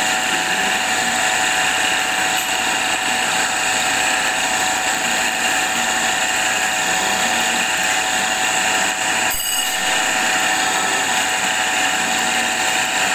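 Electric grinding machine running, its abrasive wheel grinding a spinning metal ring, a steady whine and hiss with many high tones throughout. A single short click about nine seconds in.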